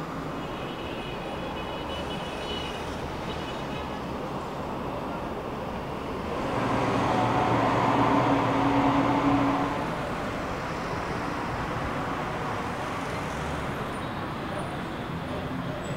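City road traffic noise, a steady hum. A louder vehicle passes about six seconds in, its low engine note swelling for a few seconds before fading back into the general traffic.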